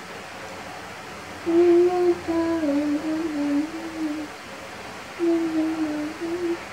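A person humming a tune in two short phrases, the first starting about a second and a half in and the second near the end, moving in steps from note to note.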